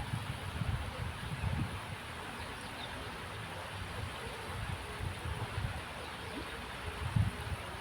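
Wind buffeting the microphone outdoors: uneven low rumbles over a faint steady hiss, with a stronger gust near the end.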